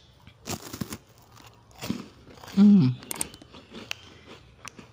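Crisp chocolate wafer being bitten and chewed, in sharp crunches and crackles, with a short hummed "mm" about halfway through that is the loudest sound.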